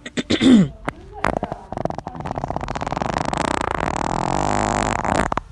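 Harley-Davidson Low Rider ST's Milwaukee-Eight 117 V-twin being revved hard: a fast train of firing pulses that builds up and holds high for a few seconds, then cuts off just before the end. A few short sharp sounds come first.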